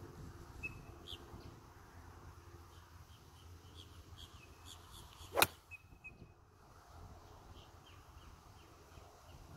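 A golf iron striking the ball about five seconds in: one sharp crack, by far the loudest sound, against faint high chirping in the background.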